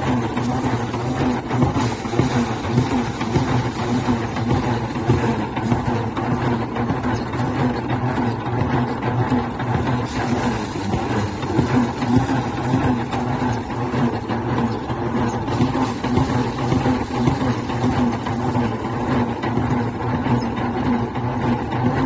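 Small motorized rice threshing machine running steadily while sheaves of rice are pushed into its drum. Its engine keeps an even, unchanging hum throughout.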